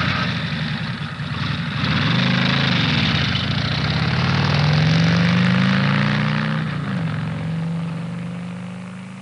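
A vehicle engine revving: its pitch rises and falls a few times, drops about seven seconds in, then holds steady as the sound fades.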